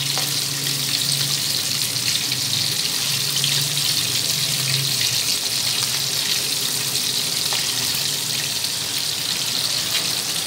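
Breaded chicken strips deep-frying in a karahi of hot oil: a steady sizzle of bubbling oil.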